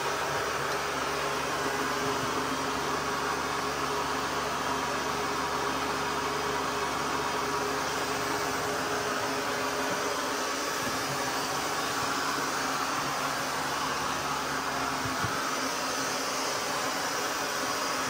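ECOVACS DEEBOT N20 PRO PLUS robot vacuum running steadily at one of its suction power settings, its suction motor giving an even whir with a faint hum, run so that its noise level can be heard.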